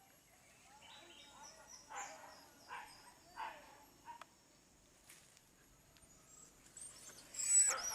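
Hunting dogs yipping and whimpering in short bursts, with the loudest burst near the end, over a steady high insect drone.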